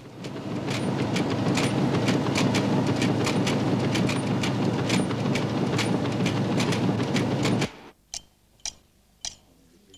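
Rotary newspaper printing press running, a loud steady clatter with rapid ticking, which cuts off suddenly near the end. Then three light clinks of a spoon against a china coffee cup.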